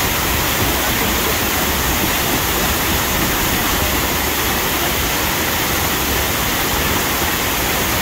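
Water from a river rapids ride's waterfall pouring over a concrete weir and down a stepped drop into the channel, a steady loud rush of falling and churning water.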